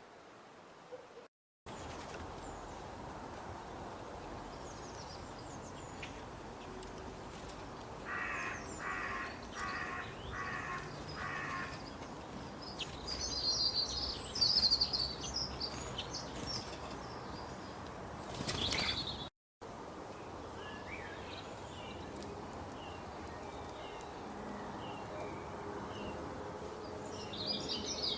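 Birdsong over a steady background hiss: a crow caws five times in a row about a third of the way in, while small songbirds chirp and twitter high up, thickest near the end. The sound cuts out abruptly for a moment twice.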